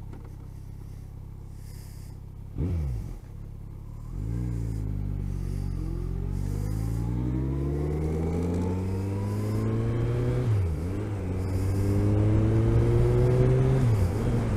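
Motorcycle engine pulling up through the gears: its pitch climbs steadily, drops sharply at a gear change about ten seconds in, then climbs again and drops at another change near the end. A brief falling note comes about two and a half seconds in, before the climb begins.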